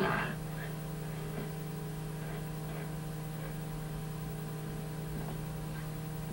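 Steady low electrical hum with a faint hiss, after a brief sound at the very start.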